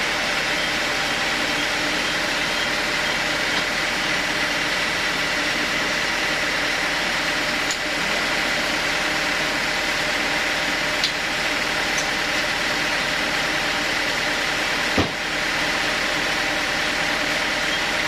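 Band sawmill running steadily without cutting, a constant machine noise with a high-pitched whine. A few light clicks and, near the end, one sharp knock.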